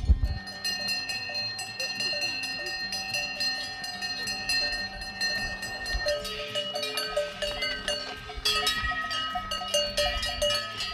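Many cowbells on a passing herd of Montbéliarde cows, ringing and clanking out of step with one another, a jumble of bell tones at many different pitches.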